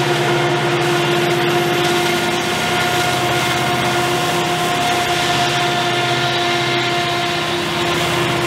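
A set of EMD SD70ACe diesel-electric helper locomotives passing under load, their V16 two-stroke diesels working hard to shove a heavy coal train upgrade. A steady whine runs over the engine sound.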